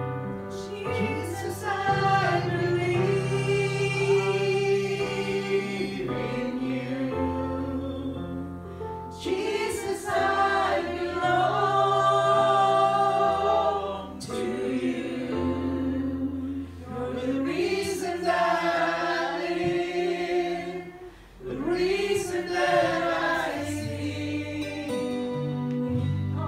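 A woman sings a worship song into a microphone over instrumental accompaniment whose low held notes change every couple of seconds.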